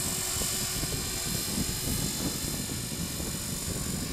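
A 450-size radio-controlled helicopter hovering, its motor and rotors making a steady buzz with a thin high whine.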